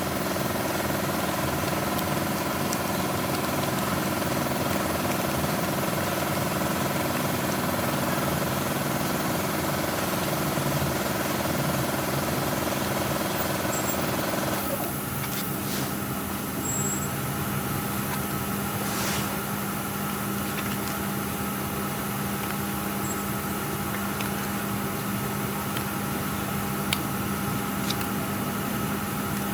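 A machine running steadily: a hum with several steady tones over a hiss. Some of the higher tones drop away about halfway through, and the hum carries on.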